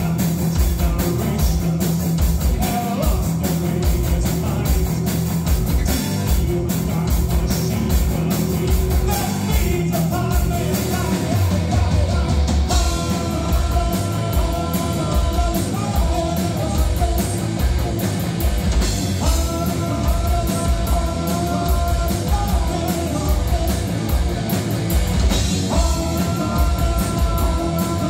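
Live rock band playing: a man singing over electric guitar, bass guitar and drum kit, loud and continuous.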